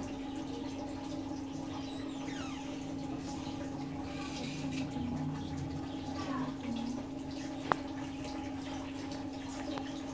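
Thick curry gravy simmering and bubbling in a steel kadai on a gas burner, over a steady low hum. A single sharp click comes about three-quarters of the way through.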